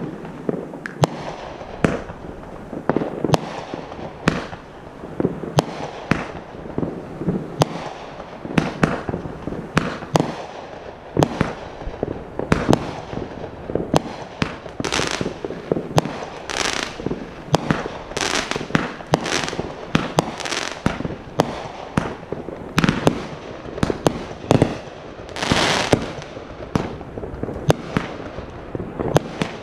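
Fireworks going off in rapid, continuous succession: many sharp bangs close together, with a few longer hissing bursts in the middle and near the end.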